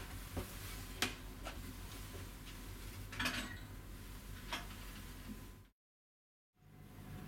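Steady low hum of the ship's machinery carried through a small cabin bathroom, with a few light clicks and clinks, the sharpest about a second in and a short clinking rattle a little past three seconds. The sound drops out completely for under a second near the end.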